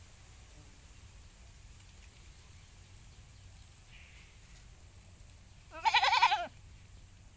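A goat bleats once, about six seconds in: a single loud, wavering bleat lasting under a second.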